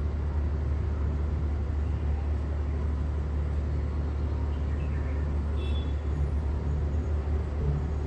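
A steady low hum, with a few faint, high bird chirps about five seconds in.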